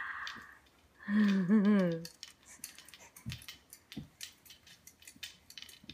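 Jolly Jumper baby jumper's harness and spring clinking and clicking in a quick, uneven run of light ticks as the baby bounces on her feet on a wooden floor. A short wordless voice sound with a wobbling pitch comes about a second in.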